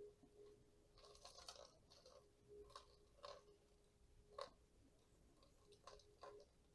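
Faint crunching and crackling of soil crumbling and tangled portulacaria afra roots being pulled apart by hand, a handful of short scrapes and clicks, the sharpest a little past the middle.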